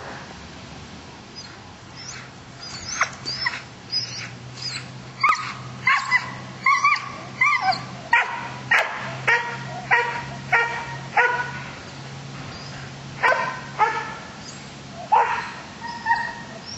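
Belgian Malinois cross dog barking repeatedly. A few high yelps come first, then a steady run of barks about two a second, a short pause, and more barks near the end.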